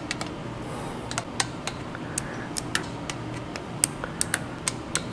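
Torque wrench ratcheting on small-block Chevy 350 intake manifold bolts: an irregular scatter of sharp metallic clicks as the bolts are brought up to the first torque step of 50 inch-pounds, over a steady low hum.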